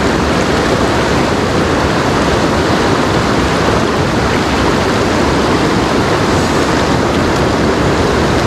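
Mountain river water rushing steadily and loudly.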